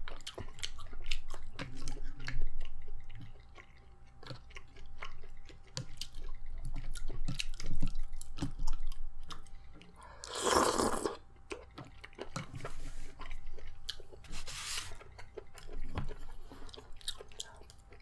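Close-up eating sounds: chewing with wet mouth clicks and smacks, and a louder noisy burst about ten seconds in and a smaller one a few seconds later.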